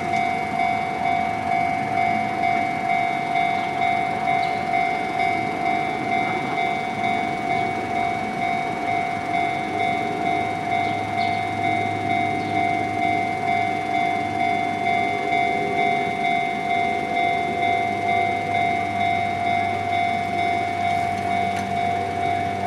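Level-crossing warning bell ringing in an even, repeating pulse about once a second, with the low running noise of a passing train underneath that grows stronger from about nine seconds in.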